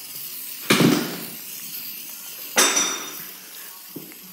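Aerosol spray-paint can sputtering out two short bursts, about a second in and again near the middle, with a faint hiss between them. The can is spraying badly after clogging.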